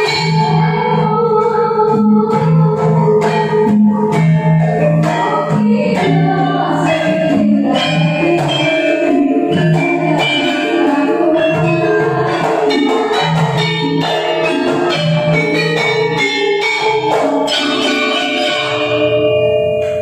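Javanese gamelan ensemble playing a langgam: bronze metallophones and gongs ringing over kendang drum strokes in the gedruk (Sragenan) style, with young female sinden singing the melody.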